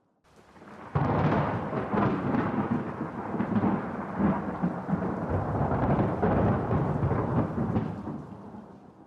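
A thunderclap breaks about a second in and rolls on as a long, crackling rumble, fading away near the end.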